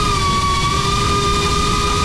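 Cinewhoop FPV drone's motors and ducted propellers whining steadily in flight, the pitch dipping slightly about half a second in, over a low rumble of air noise.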